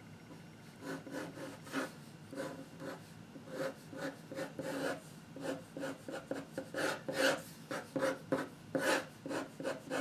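Pen scratching on paper in quick sketching strokes, about two a second, starting about a second in, as lines are drawn around a sketch.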